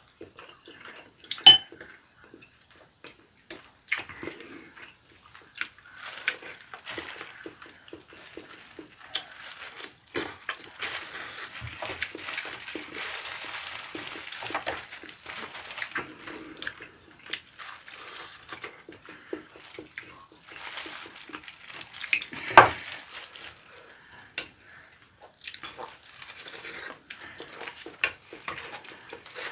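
Eating sounds at the table: chopsticks tapping and clicking against dishes, and a plastic-gloved hand pulling boiled chicken apart. Two sharp clacks stand out, one just after the start and one about two-thirds through.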